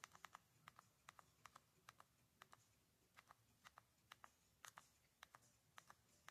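Faint clicks of a remote control's buttons pressed over and over, each press a quick double click, about two presses a second with a short pause in the middle, as it steps down through an on-screen menu.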